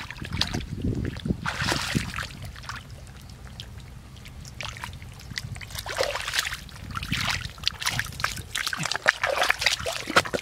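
Hands scooping and splashing in shallow muddy water, with bare feet squelching through the mud: irregular wet splashes and sloshing, quieter for a few seconds around the middle.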